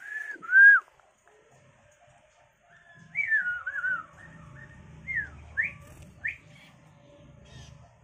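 A person whistling a string of short sliding notes to call a tame bird: two near the start, a wavering run about three seconds in, then three quick swooping whistles a little later.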